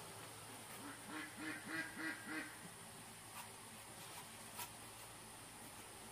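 A duck quacking in a quick run of about six quacks, starting about a second in and lasting about a second and a half. A couple of faint clicks follow later.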